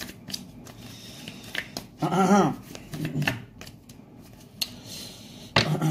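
Tarot cards being shuffled and handled, a run of soft clicks and snaps. A brief murmur of voice comes about two seconds in.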